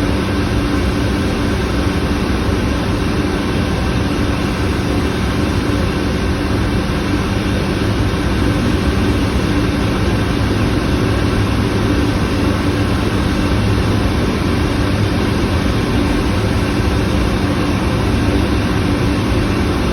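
Bryan steam boilers firing, a loud, steady roar with a constant low hum underneath.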